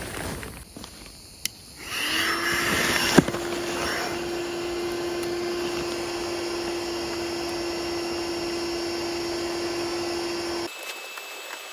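Electric air pump running steadily with a constant hum. It starts about two seconds in and cuts off suddenly near the end.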